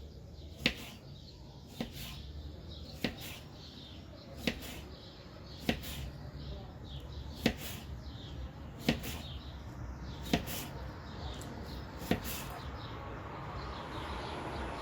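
Folding knife chopping an onion on a cutting board: single sharp knocks of the blade hitting the board, about one every second and a half.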